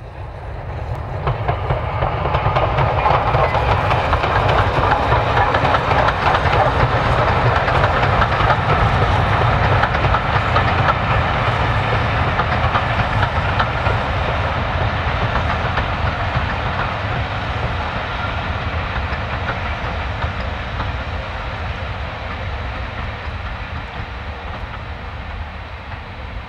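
Steam locomotive hauling a train of coaches past, its rumble and exhaust swelling over the first couple of seconds, holding steady, then slowly fading away.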